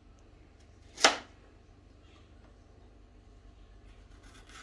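A single sharp knife stroke on a carrot about a second in, fading quickly, with another stroke right at the end; otherwise quiet kitchen room sound.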